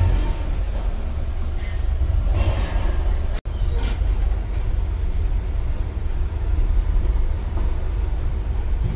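Steady low rumble of riding on the open upper deck of a moving double-decker tour bus, with wind buffeting the microphone. It breaks off for an instant about a third of the way through.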